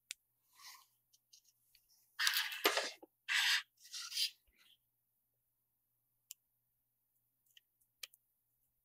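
Handling sounds of a small mSATA SSD card and its SATA adapter board being lined up by hand: three short scraping, rubbing sounds around the middle, with a few faint clicks before and after.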